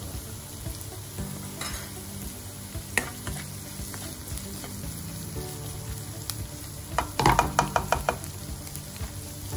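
Chopped onion, curry leaves and tempering spices sizzling in oil in a kadai while a spatula stirs them. About seven seconds in comes a quick run of spatula scrapes and taps against the pan, the loudest part.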